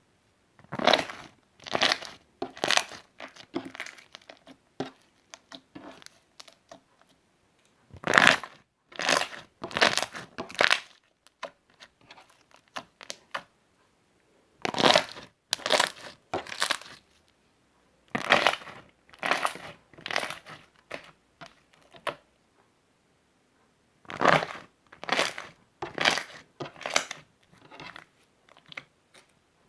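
Hands squeezing slime close to the microphone: a series of sudden squeeze sounds about one a second, in groups of four to six with short pauses between them.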